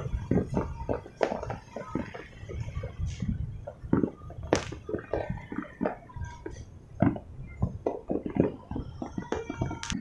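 Fireworks exploding: an irregular run of pops and bangs, several a second, over a low rumble.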